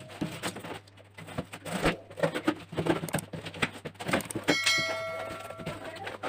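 A knife slits packing tape on a cardboard box and the flaps are pulled open: a run of short scrapes, rips and cardboard rustles. About four and a half seconds in, a bell-chime sound effect rings with several clear tones and fades out about a second later.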